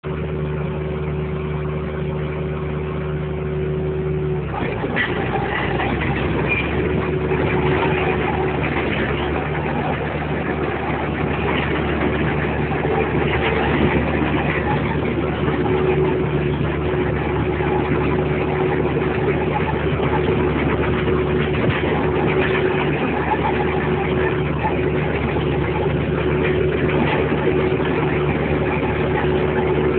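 Engine running steadily at a constant pitch, heard from inside the vehicle's cab. A little past four seconds a loud rushing noise joins it and stays.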